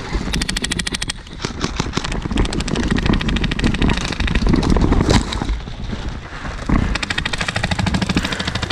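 Airsoft guns firing long full-auto bursts, a rapid even rattle of many shots a second, thickest in the first few seconds and again near the end.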